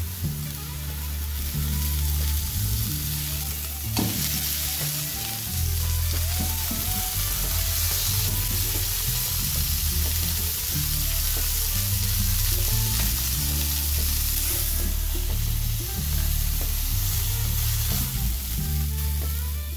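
Chicken breast fillets sizzling steadily in hot fat in a non-stick frying pan, with a sharp click of the tongs or pan about four seconds in. Background music with a low bass line runs underneath.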